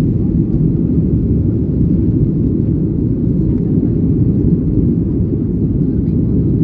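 Jet engines heard from inside an airliner cabin: a loud, steady low rumble that holds even throughout.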